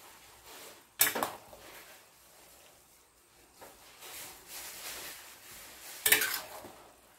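Metal spatula stirring and scraping fried rice vermicelli in a stainless steel frying pan, with sharp clanks of metal on the pan about a second in and again near the end.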